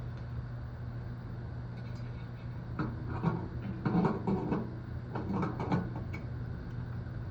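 Three short rattling pulls on the recoil starter of a Hart 3600-watt gas generator, about a second apart, over a steady low hum; the engine does not catch.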